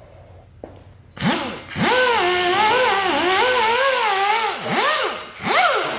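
Air sander whining as it grinds surface rust off a brake rotor, starting about a second in; its pitch wavers as it works and dips and climbs back up a few times near the end. It is taking down the rusted high spot where the brake pad sat, the cause of brake pulsation and humming.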